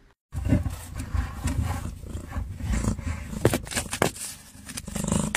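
An animal's low, rough roar-like call, with a few clicks and knocks over it.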